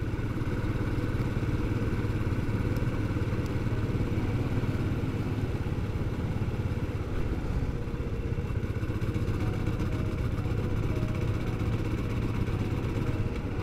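Motorcycle engine running steadily at cruising speed, with road noise, heard from on the bike.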